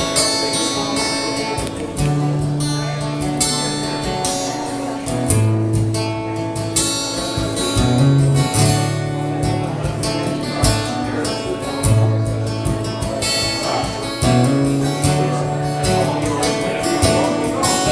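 Acoustic guitar strummed in a steady rhythm, over held low notes that change every second or two.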